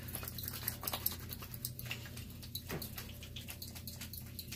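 Palms rubbing together with a little conditioner on them, making an irregular run of small wet, sticky clicks and squelches over a steady low hum.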